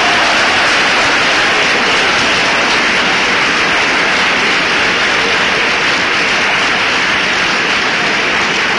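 A packed auditorium audience applauding loudly and steadily for several seconds.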